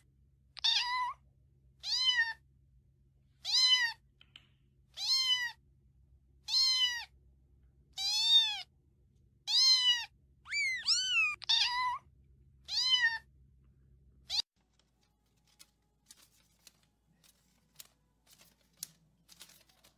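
Domestic cat meowing over and over, about a dozen short meows roughly one every second and a half, each rising then falling in pitch. The meows stop abruptly about two-thirds of the way in, leaving only faint scattered ticks.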